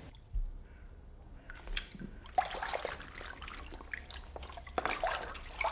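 A glazed bowl being washed by hand in a stone sink: water splashing and dripping, with a few short sharp knocks of the dish near the middle and end.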